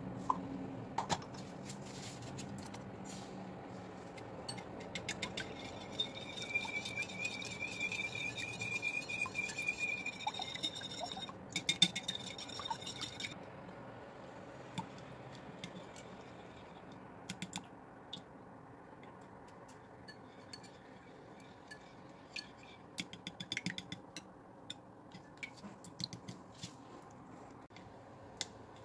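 Metal wire whisk beating a liquid batter of milk, egg and yeast in a glass bowl, its wires clicking and ticking against the glass. A stretch of fast, dense ticking with a thin high ring runs in the middle, followed by a few louder clinks, then slower, scattered clicks.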